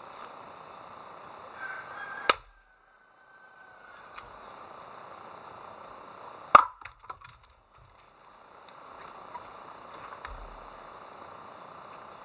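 Two sharp axe strikes splitting firewood, about four seconds apart, the second one louder. Insects chirr steadily in the background.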